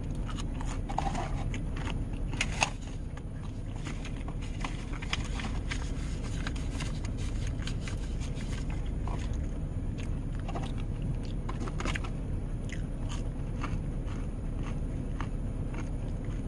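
A person biting and chewing fries, with many small wet clicks and crunches of eating and one sharper click a little over two seconds in, over a steady low rumble in a car cabin.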